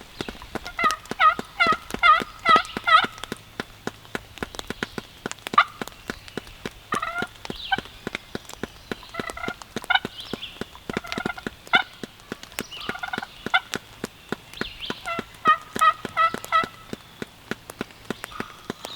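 Turkey yelping: four runs of quick, evenly spaced yelps, about three notes a second. Sharp drips, likely rain, tick throughout.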